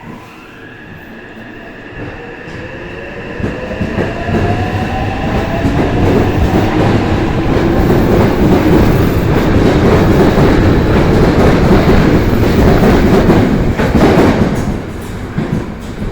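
Yokohama Municipal Subway Blue Line train pulling away and speeding up, its electric traction motors whining in several tones that rise in pitch. The rumble and wheel clatter grow loud as the cars go past close by, then drop off sharply about fourteen seconds in.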